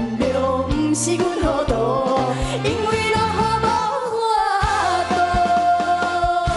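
Two women singing a duet of a Taiwanese Hokkien pop song over instrumental backing with a steady beat, holding one long note with vibrato over the last two seconds.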